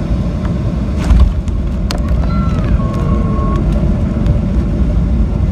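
Cabin noise of a Boeing 737-800 landing: a loud, steady rumble, with a heavy thump about a second in as the main wheels touch down. After it come scattered small rattles and clicks as the ground spoilers rise.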